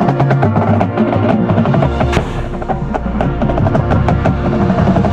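Drum and bugle corps playing: held brass chords over front-ensemble percussion, with dense quick mallet and drum strokes throughout. A strong low held note enters about two seconds in and drops out before four.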